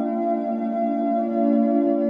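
Ambient relaxation music: a bed of sustained, ringing tones held steady, with no beat.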